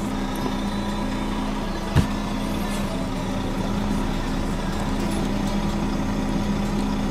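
Truck diesel engine idling with a steady hum. A single sharp click comes about two seconds in.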